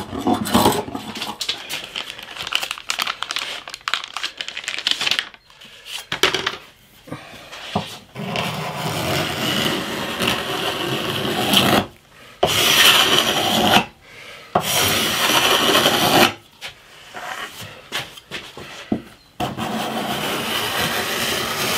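Steel card scraper drawn along the side of a wooden bass guitar neck, a series of scraping strokes one to a few seconds long with short pauses between them.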